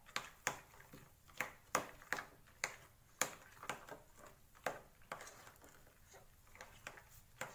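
Metal spoon mixing thick shrikhand, strained sweetened yogurt with cashews and pistachios, in a glass bowl. The spoon clinks and scrapes against the glass in uneven sharp ticks, about one to two a second.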